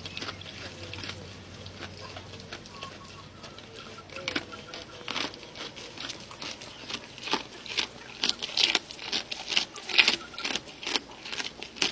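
A goat chewing fish: irregular wet crunching and clicking, sparse at first, then louder and quicker from about seven seconds in.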